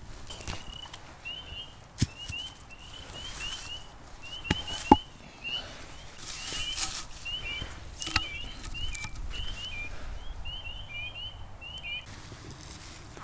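Short high chirps repeating several times a second throughout, from a small bird or frog. A few sharp knocks, the loudest about five seconds in, and a brief rustle come from the bench work.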